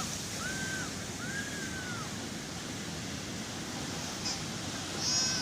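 Sea waves washing steadily onto the shore as an even rushing noise. Two short whistle-like tones, rising then falling, sound in the first two seconds, and a brief high chirp comes near the end.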